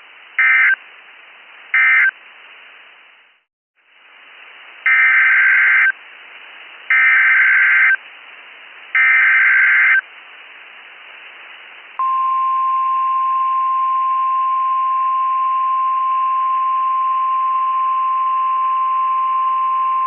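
Emergency Alert System data bursts and alert tone from a NOAA Weather Radio broadcast. First come the last two short buzzy bursts of the end-of-message code, then a brief gap. Three one-second bursts of the SAME header follow for the next alert, then about eight seconds in the steady single-pitch warning alarm tone starts and holds.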